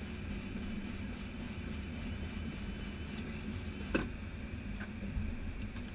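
Steady hum and low rumble inside an Airbus A320 cockpit on the ground, with a few fixed tones running through it. A single sharp click sounds about four seconds in, and a fainter one about a second later.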